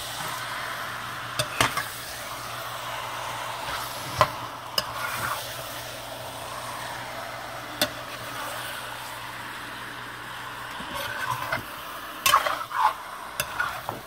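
Curry chicken sizzling in hot oil in a metal pot while a metal spoon stirs it, scraping and knocking against the pot every few seconds, with a quick cluster of knocks near the end.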